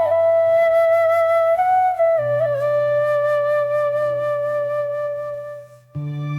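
Background music: a flute plays a slow melody of long held notes over a low sustained drone. Near the end it breaks off briefly, and a new chord comes in.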